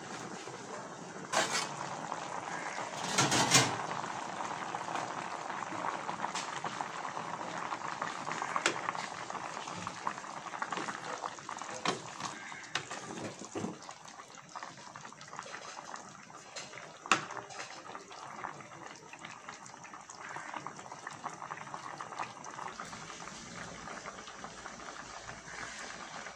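Coconut milk with pork boiling steadily in a stainless steel pot, bubbling. A few sharp knocks break in, the loudest a short cluster about three seconds in.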